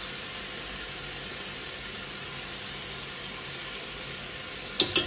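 Lamb neck pieces sizzling steadily in hot ghee in a pot. Two sharp clicks come near the end.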